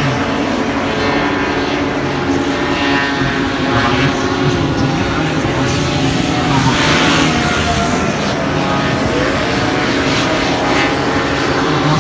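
Several racing hovercraft running at once over the water. Their engines and propellers make a steady loud drone of overlapping tones that rise and fall in pitch.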